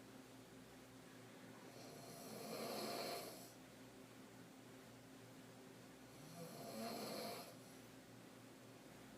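A woman snoring with her mouth open in deep sleep on her back: deep throat snores. Two snores, each lasting a second or two, about four and a half seconds apart, one about two seconds in and the other about six and a half seconds in.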